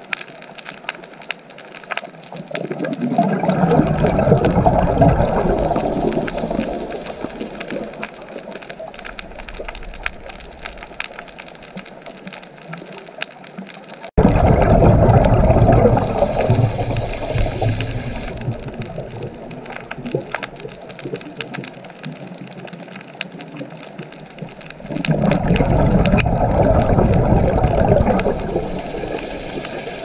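Underwater ambience: a constant fine crackling, with three slow swells of low rushing water noise. The second swell starts abruptly, about halfway through.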